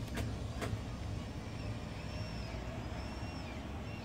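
Low, steady background rumble with two light clicks near the start.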